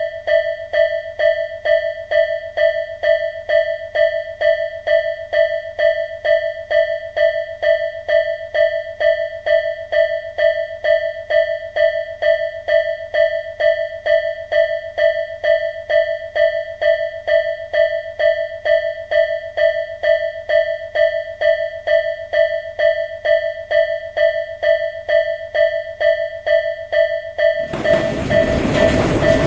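Japanese railway level-crossing warning bell ringing its 'kan kan' signal at an even beat of about two strikes a second. Near the end a loud rushing noise joins it as a train passes.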